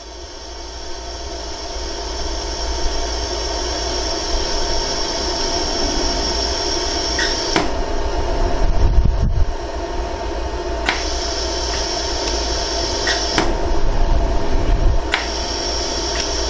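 Jewelry laser welding machine running with a steady hum, with a handful of sharp, irregularly spaced clicks in the second half as the laser fires while backfilling a gold ring.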